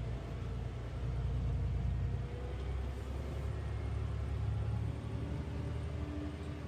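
Concrete mixer truck's diesel engine running with a steady low rumble.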